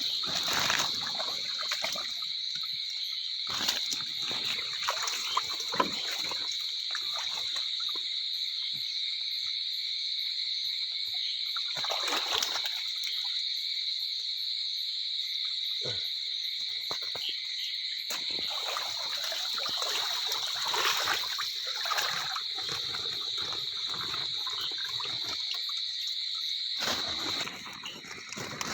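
Shallow running water trickling, with irregular splashes and sloshes as someone wades and works in it. A steady, high-pitched chorus of night creatures runs under it, and a few louder splashes stand out about a third of the way in and again about two-thirds in.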